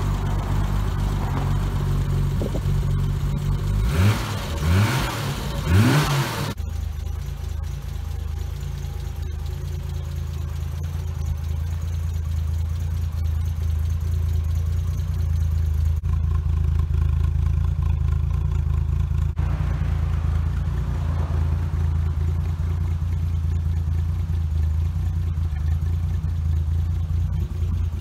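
A 1971 Triumph GT6 Mk3's two-litre straight-six idling, blipped three times in quick succession about four seconds in, each rev rising and dropping back, then settling to a steady idle.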